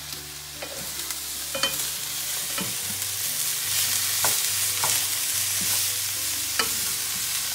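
Vegetables and chicken sizzling in a hot frying pan as they are stir-fried, with wooden utensils clicking against the pan now and then. The sizzle builds a little, over a low steady hum.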